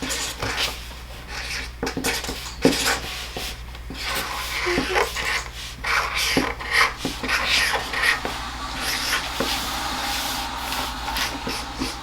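Recording of ocean waves played back, a noisy wash that swells and ebbs and grows stronger about four seconds in, with small clicks and rubbing over it.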